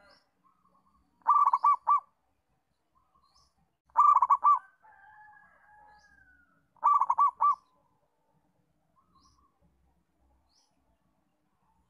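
Zebra dove (perkutut) song: three bursts of quick rolling coos, about three seconds apart, the middle one trailing into a softer drawn-out note. Faint short high chirps in the background.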